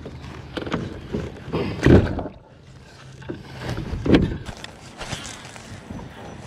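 Knocks and bumps on a kayak hull as gear in the cockpit is handled, with a louder thump about two seconds in and another about four seconds in.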